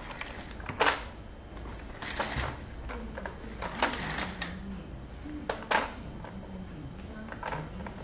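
Irregular clicks and knocks from a baby walker's plastic toy tray as a baby bats at its beads and buttons, with a few seconds between most knocks.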